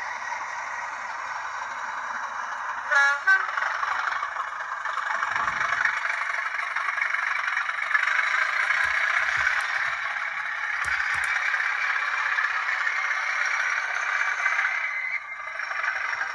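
Bachmann Class 37 model locomotive running under its factory DCC sound: the decoder's recorded English Electric diesel engine sound from the model's small speaker, over the rattle of the wheels on the track. A brief pitched tone sounds about three seconds in.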